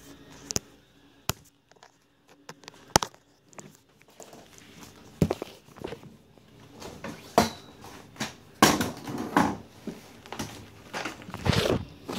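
Handling noise from a phone being moved about and gripped: scattered clicks and knocks, with longer rustles in the second half.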